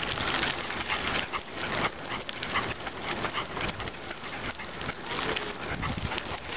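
Bicycle tyres rolling over a path strewn with dry fallen leaves, with a dense run of small crackles and crunches.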